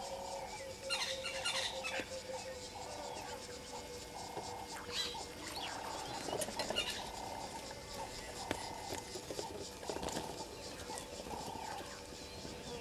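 Vervet monkeys calling close to the camera: a string of short, mid-pitched calls repeating every second or so, with scratchy rustles mixed in.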